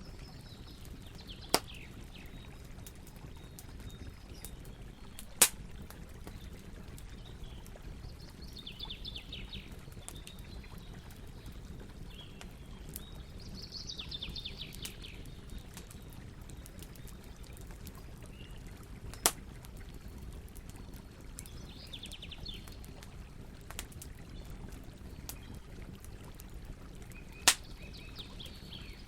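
Campfire burning with a steady low rush and occasional sharp crackle pops, four loud ones in all. A bird sings a short trill every several seconds in the background.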